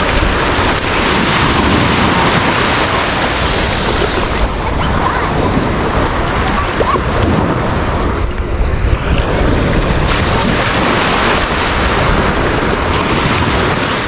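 Ocean surf washing over the shallows close to the microphone: a steady rush of water with a brief lull about eight seconds in.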